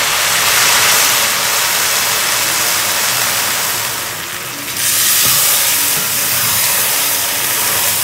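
Pot of moksi alesi (rice, chicken, beans and spices, with coconut milk and bean cooking water just added) hissing and sizzling on the stove. The hiss dies down for a moment about four seconds in, then comes back.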